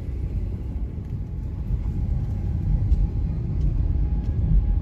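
Low, steady rumble of a car's road and engine noise heard from inside the cabin while driving.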